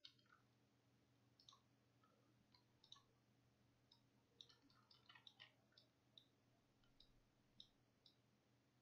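Near silence with faint, scattered computer mouse clicks, a dozen or so, over a faint steady low hum.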